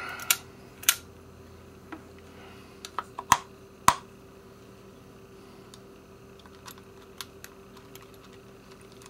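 Garcia Mitchell 300 spinning reel's bail wire being worked open and snapped shut, a series of sharp metal clicks, the loudest about three to four seconds in and fainter ones later; the bail spring has just been oiled.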